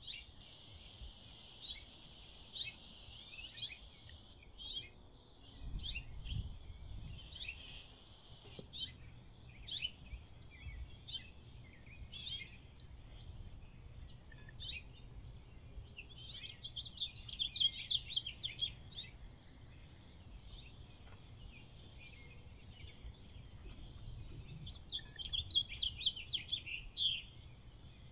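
Small songbirds chirping, with quick repeated notes throughout and two longer runs of rapid trills, one about the middle and one near the end.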